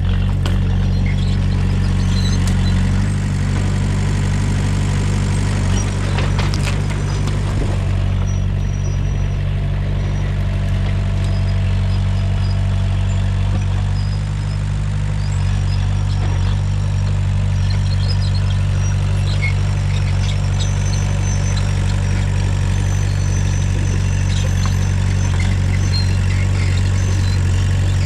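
Komatsu bulldozer's diesel engine running steadily at a low, even pitch, with a couple of short clanks about six seconds in.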